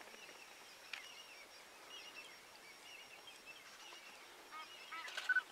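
African wild dogs twittering while feeding on a kill: many short, high chirping calls scattered through, bunching into a louder flurry near the end.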